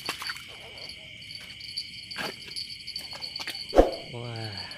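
Crickets chirring in a steady, high-pitched night chorus, with scattered clicks and one sharp knock about four seconds in.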